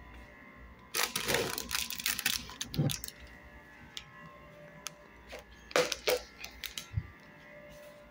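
Plastic storage baskets of packaged food being pulled off wooden pantry shelves and handled: scattered knocks, clicks and rustles of packets, in short clusters about a second in, near three seconds and around six seconds.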